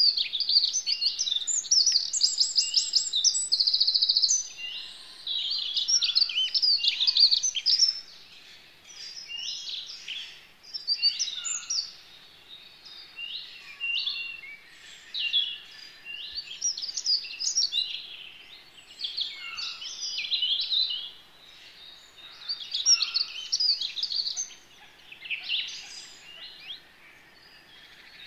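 Woodland songbirds singing, several songs overlapping in quick warbling and trilling phrases, busiest in the first eight seconds and then coming in bouts every second or two.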